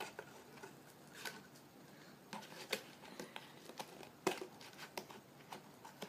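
Scissors snipping into a cup to cut a hole: a string of faint, irregular snips and clicks, a few seconds apart at most.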